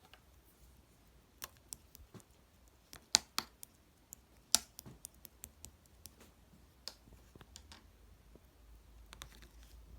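Slime being squeezed and worked by hand, giving irregular sharp clicking pops, the loudest about three and four and a half seconds in.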